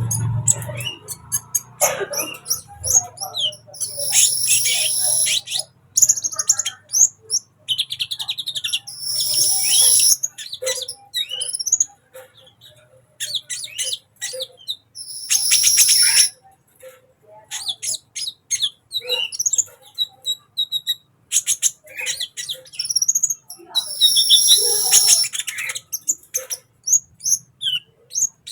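A sunbird singing vigorously: rapid, high-pitched chirps and trills, rising to loud, dense bursts of song every few seconds.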